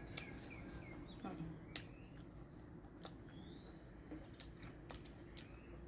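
Quiet chewing with scattered sharp mouth clicks, and a few short high bird chirps.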